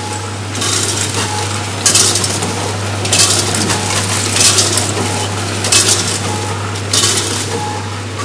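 Snack packaging machine running: a steady motor hum under a rattling, clinking rush that repeats about every 1.3 seconds as each portion of snacks drops through the machine into a bag.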